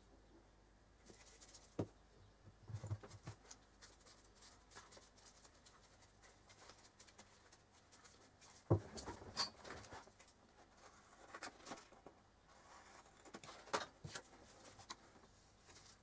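Gloved hands handling a small lidded box while sealing it with silicone adhesive: light clicks, taps and rustles of plastic and nitrile gloves, with the sharpest knock about nine seconds in.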